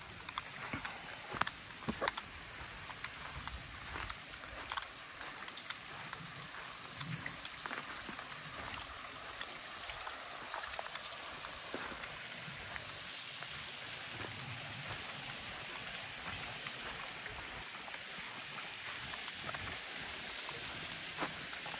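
Steady hiss of water, with scattered light clicks and crackles in the first half; the hiss evens out in the second half.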